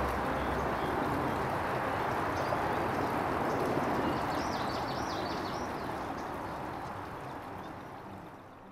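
Steady outdoor background noise with a few faint, quick, high bird twitters about halfway through, fading out near the end.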